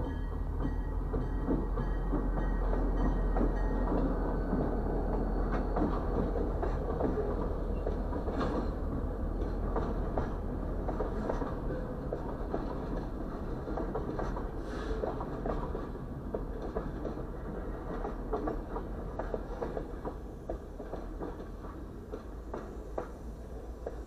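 A diesel-hauled freight train passing close by. The lead locomotive's engine rumble is followed by the cars' wheels clicking and clattering over the rail joints. The sound fades as the end of the train clears the crossing near the end.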